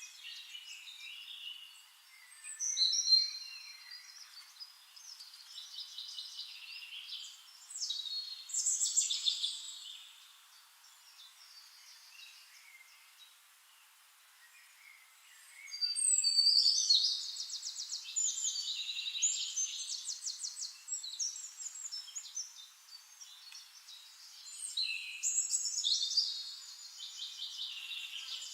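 Songbirds singing: bursts of quick warbled and trilled phrases, with a quieter gap partway through before a longer run of rapid trills.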